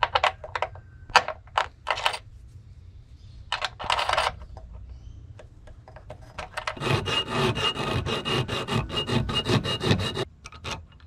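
Metal bus bar hole being filed out with a half-round file: a few separate strokes, then about three seconds of quick back-and-forth rasping near the end.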